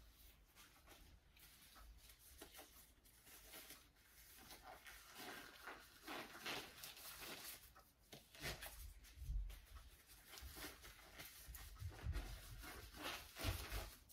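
Faint rustling of gloves being pulled onto the hands, with a few soft low bumps.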